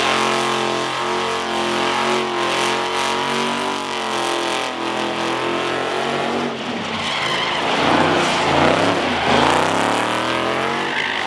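A car sliding in a drift pit: its engine held at steady high revs for several seconds, then revving up and down over and over, with tyres skidding and squealing.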